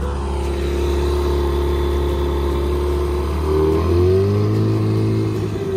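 Tohatsu tiller outboard motor running with the boat under way, a steady drone that rises in pitch and gets louder about three and a half seconds in as it is throttled up.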